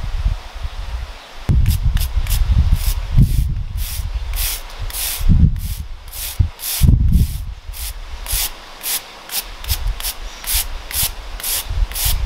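Stiff hand brush scrubbing dried wood ash off a netted, cured coppa ham: a run of short, hissing bristle strokes, about two a second, starting about a second and a half in.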